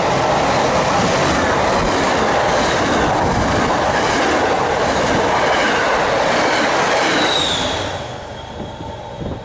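MBTA commuter rail train of bilevel coaches passing at speed close alongside the platform: a loud rush of wheel and rail noise with clickety-clack and a thin, high wheel squeal near the end. The noise falls away sharply about eight seconds in as the last car clears.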